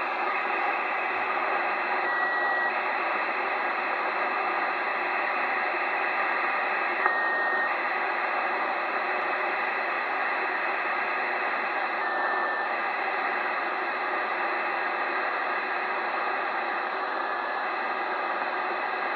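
Kenwood 2 m all-mode transceiver receiving in upper-sideband mode, giving out steady receiver hiss while tuned to the FUNcube satellite's telemetry downlink. A short tone comes about every five seconds, each one slightly lower in pitch than the last.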